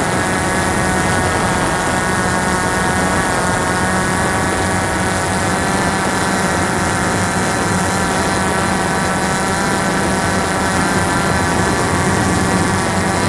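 Cheerson CX-20 quadcopter's four propellers and motors running steadily in flight, a close, loud multi-toned hum picked up by the drone's onboard camera. Its pitch wavers slightly a few seconds in as the drone manoeuvres.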